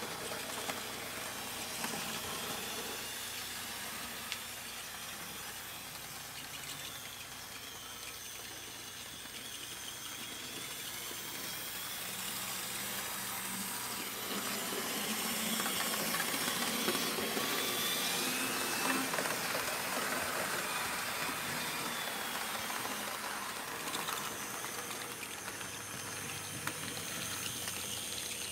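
Model train running on the track: the HO-scale TYCO Mantua 0-4-0 switcher's small electric motor whines as it pushes a short train of cars. The steady rolling hiss of wheels on rail sits under the whine, which wavers in pitch as the speed changes.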